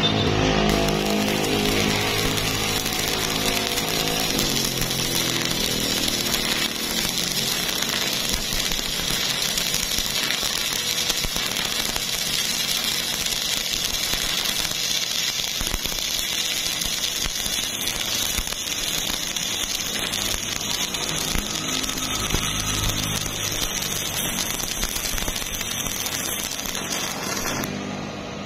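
Stick (shielded metal arc) welding: the arc of a flux-coated electrode crackling and sizzling steadily as it runs a horizontal fillet weld on rusty steel plate. The arc breaks off abruptly shortly before the end.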